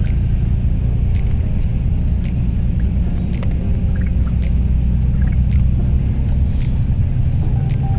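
Steady low rumble of a moving vehicle heard from inside, with scattered short clicks and rattles.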